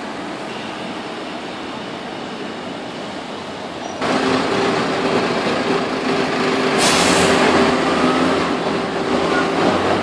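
Dennis Dart single-deck diesel bus: steady, quieter running noise at first, then about four seconds in a louder close-up of the bus running at the kerb with a steady whine and engine rumble. A short hiss of released air from its air brakes comes about seven seconds in.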